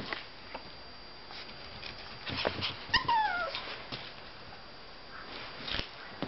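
Pomeranian giving one short whine that falls in pitch about three seconds in, among a few light taps and knocks.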